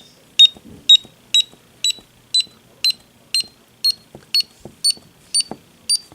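DSC alarm keypad sounder giving short, high beeps about two a second, each a little higher in pitch than the last. The left arrow key is stepping it through its buzzer volume settings until it falls silent.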